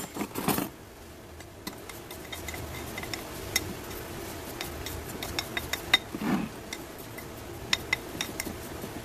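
Metal tweezers clicking and scraping against gritty potting mix as a succulent is settled into its pot: scattered small sharp ticks, with a brief louder rustle at the start.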